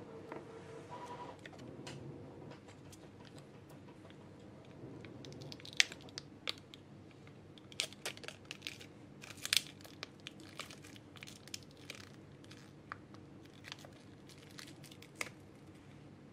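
Packaging of a boxed gouache paint set being unwrapped: scattered sharp crinkles and tearing that start about five seconds in, come thickest around the middle, then thin out.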